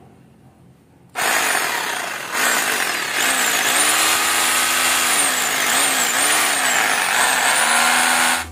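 Makita rotary hammer drill's electric motor starting about a second in and running loud, its speed rising and falling several times.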